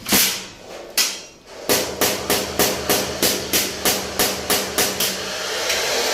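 Hammer striking a sheet-metal cable tray: two heavy blows about a second apart, then a quick run of about a dozen even strikes at roughly three a second. A steady machine noise comes up near the end.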